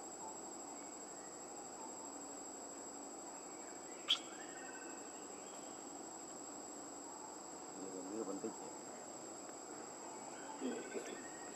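Steady, high-pitched drone of insects, with a single sharp click about four seconds in.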